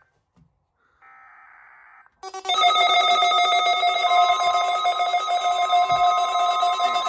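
Emergency Alert System test tones: a faint one-second burst of SAME header data, then about two seconds in a loud, rapidly pulsing electronic alert tone starts. A steady single tone joins it about four seconds in.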